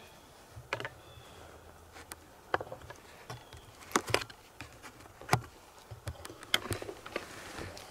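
Horse walking through dry fallen leaves: irregular hoof steps crunching and rustling the leaf litter, with a few sharper knocks among them.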